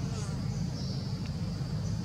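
Steady high-pitched drone of forest insects over a continuous low rumble.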